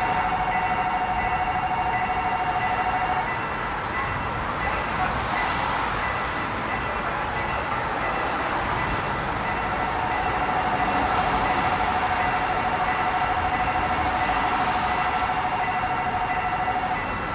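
Electronic warning bell of an unmanned railway level crossing, a fast-repeating pitched ding, sounding for about three seconds, stopping, then starting again about ten seconds in and stopping near the end, over steady running noise.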